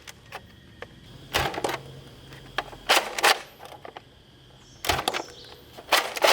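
Plastic toy gun clacking in four short bursts of sharp clicks and snaps, its mechanism being worked and fired.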